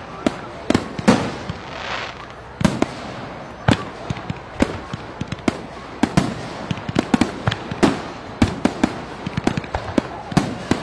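Fireworks going off: an irregular, rapid string of loud bangs and sharp cracks, with a hissing rush about two seconds in.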